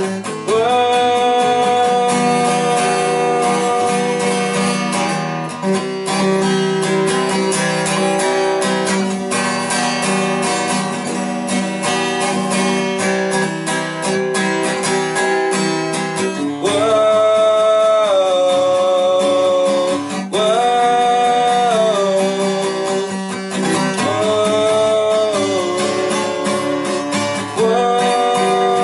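Acoustic guitar strummed steadily under a wordless sung "whoa-oh" vocal line of long held notes that slide between pitches, the voice standing out more from about midway.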